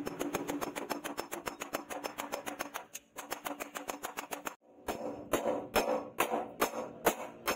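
Hand hammer blows on a red-hot leaf-spring steel machete blade lying on a steel post anvil. A fast run of sharp strikes lasts about three seconds, and after a brief break come slower ringing blows, about three a second.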